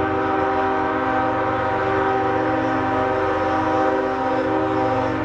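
Diesel freight locomotive's air horn sounding one long, steady multi-note chord that cuts off near the end, over the low rumble of the approaching train.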